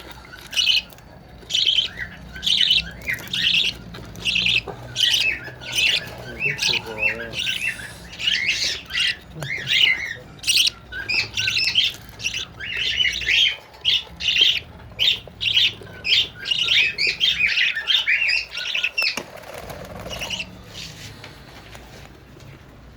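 A lutino pair of cage birds and their chicks chirping and squawking in short, quickly repeated high calls, which die away a few seconds before the end.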